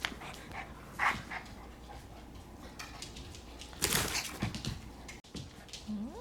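Young puppies play-fighting: short barks and yips among scuffling, with a loud scuffle about four seconds in and a short rising whine near the end.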